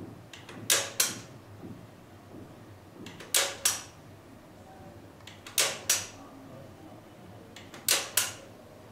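Picture-advance mechanism of a toy mini slide projector clicking as it moves to the next picture: four double clicks, a little over two seconds apart.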